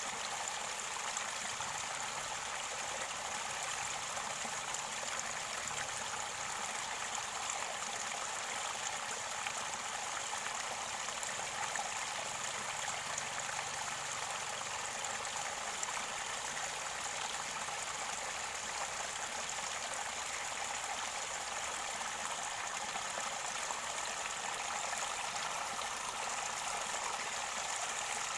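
Mountain stream water gurgling and running steadily over rocks near its spring source, an even rushing sound with no pauses.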